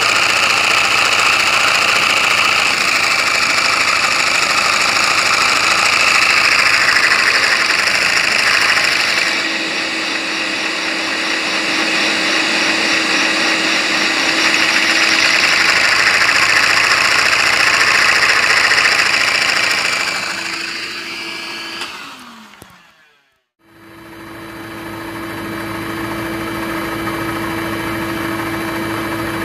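LEGO flat-two vacuum engine running at high speed, about 8,100 rpm: a dense, continuous whirring rush with a steady hum under it. About three quarters of the way through, the sound falls in pitch, fades and drops out briefly, then returns and runs on steadily.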